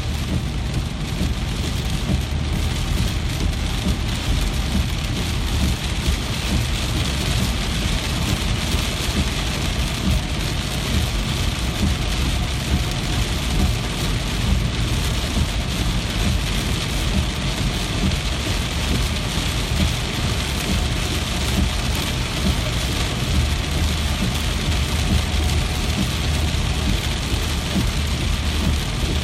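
Steady heavy rain falling, an even dense hiss of drops with a deep low rumble beneath it.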